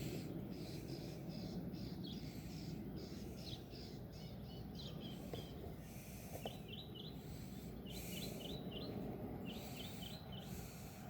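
A bird chirping in quick runs of three or four short rising notes, several runs from about six seconds in, over a steady low background noise.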